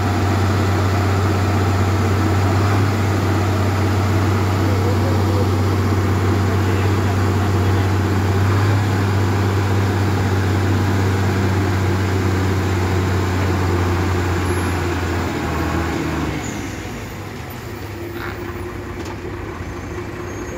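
Diesel engine of a heavily loaded ten-wheeler truck, struggling as it crawls past close by: a loud, steady deep drone. About sixteen seconds in, the drone drops away and quieter engine noise from the following traffic remains.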